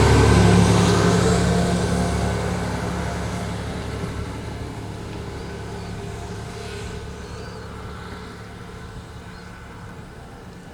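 Tsugaru Railway Tsugaru 21 diesel railcar's engine running with a steady low hum, fading gradually as the railcar moves away.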